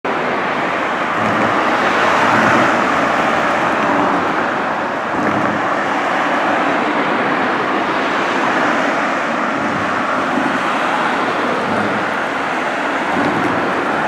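Road traffic: cars passing on a street, a steady rush of tyre and engine noise that swells about two seconds in.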